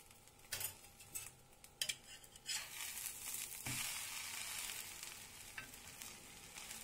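A few clicks and scrapes of a metal utensil on a dosa griddle, then buttered bread sandwiches sizzling on the hot griddle just after being flipped. The sizzle swells about two and a half seconds in and fades after a couple of seconds, with one dull knock in the middle.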